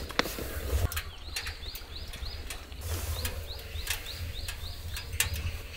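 A small bird calling in quick runs of short rising chirps, about three or four a second, with scattered sharp clicks and a low rumble.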